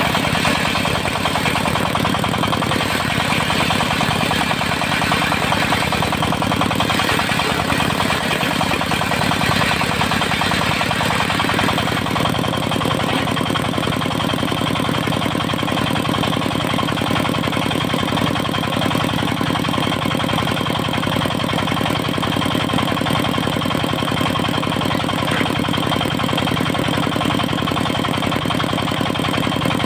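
Stationary engine driving a circular sawmill, running steadily. In the first dozen seconds a harsher, higher-pitched noise sits over it, then drops away, leaving the even running of the engine.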